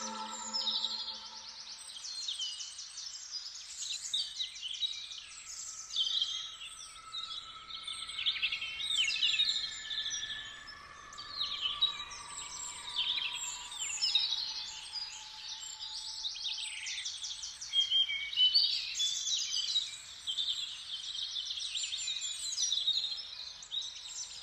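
Several birds singing and calling together: many short chirps, quick trills and downward-sweeping notes overlapping throughout, with faint held tones underneath.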